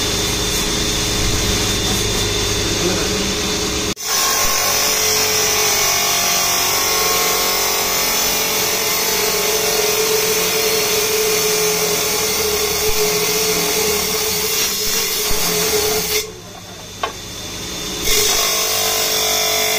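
A circular saw blade on a stone-cutting saw grinding through a block of nephrite jade, a steady whine over the motor's running noise. The sound changes abruptly about four seconds in, and near the end it drops away for under two seconds before the cutting resumes.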